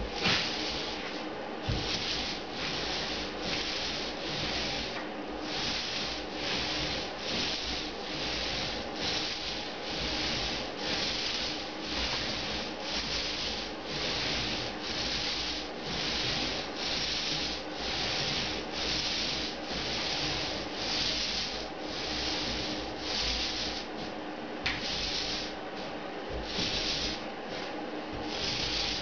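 Paint roller on an extension pole rolling paint across a ceiling: a rhythmic hissing rub with each back-and-forth stroke, about one and a half strokes a second, with a couple of short breaks near the end.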